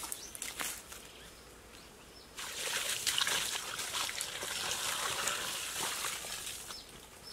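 Water pouring and splashing into a pit dug in sandy soil, a steady rush from about two and a half seconds in. Before that, light scraping of soil by hand.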